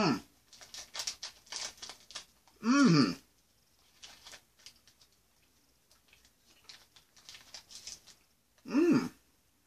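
A man chewing a mouthful of marshmallow and caramel candy bar: faint, irregular wet mouth clicks, broken three times by a short hummed "mmm" of enjoyment whose pitch rises and falls, at the start, about three seconds in, and just before the end.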